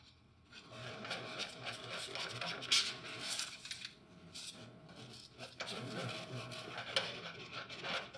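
Gloved hands rubbing and shifting coils of insulated refrigerant tubing against a mini-split outdoor unit, with small metallic clicks from the brass quick-connect fittings and caps being handled.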